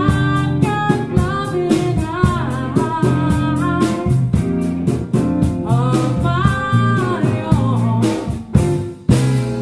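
Soft-rock band music: a sung lead vocal over guitar, bass and a steady drum beat, dipping briefly just before the end.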